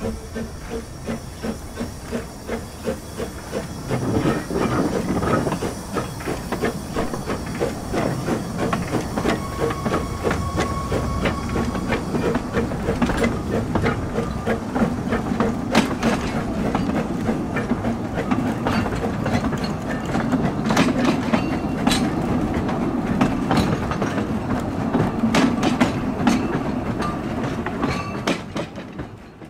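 Narrow-gauge steam saddle-tank locomotive pulling away with regular exhaust beats and hissing steam, followed by its wooden bogie coaches rolling past with wheels clicking over the rail joints. The sound cuts off at the end.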